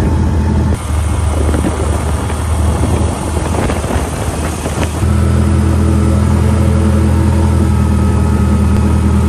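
Outboard motor running steadily at speed, pushing a jon boat across open water. The sound jumps louder about a second in and again about five seconds in, then holds steady.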